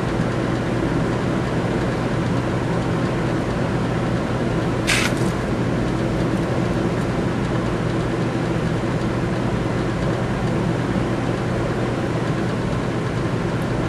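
Steady hum and rush of a shop exhaust fan running over a coal forge fire, with one short sharp crack about five seconds in.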